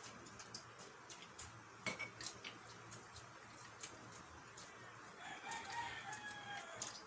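A rooster crows once, a single long call starting about five seconds in, over scattered small clicks and taps.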